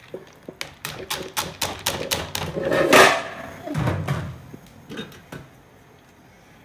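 Washed rice tipped from a plastic colander into a metal pot of stew: a quick run of sharp taps and clicks, about four a second, then a loud rush of rice sliding out near three seconds in, and a few last taps.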